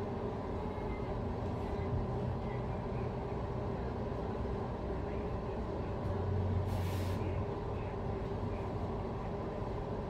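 Steady low rumble of distant vehicle traffic, with a short hiss and a louder low hum about seven seconds in. A few faint bird chirps come through now and then.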